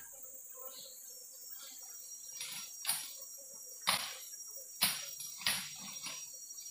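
Steady high-pitched drone of insects such as crickets or cicadas, with a handful of short, sharp clicks about three to six seconds in.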